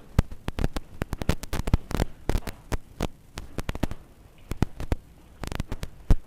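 Irregular crackling: rapid clicks and pops of uneven loudness over a faint low hum, thinning out for a moment around four to five seconds in. A dense cluster of clicks follows, with the loudest pop near the end.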